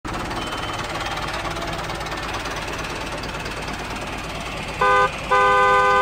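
Toy excavator's electronic engine sound running as a steady rattling hum, then its horn sounds near the end: a short toot followed by a longer one, each a loud chord of steady tones.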